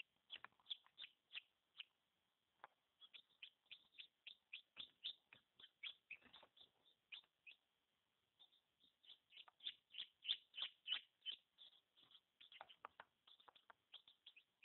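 Newly hatched chicken chick peeping faintly: a rapid run of short, high peeps, several a second, broken by a pause of about a second in the middle.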